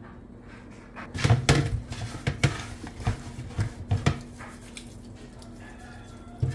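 Hands handling and seasoning raw chicken drumsticks in a pan: an irregular run of soft knocks and handling noises for about three seconds, then a low steady hum with one more knock near the end.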